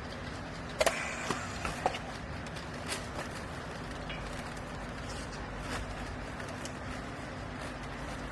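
Wiper baler's machinery running with a steady hum, with a quick cluster of sharp clanks about a second in and another single knock a second or so later.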